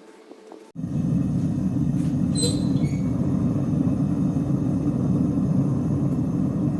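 A workshop machine comes on abruptly about a second in and runs with a loud, steady, low roar.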